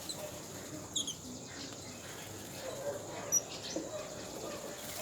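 Yellow-billed babblers calling: scattered short, squeaky chirps and chatter over a steady high hiss, with a sharper high note about a second in and a louder one past the three-second mark.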